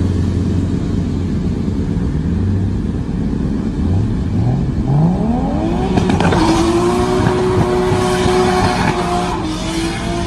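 Engine noise from a street burnout: a low, steady drone, then the revs climb about four to six seconds in and hold high. A rushing tyre noise joins in as the revs stay up.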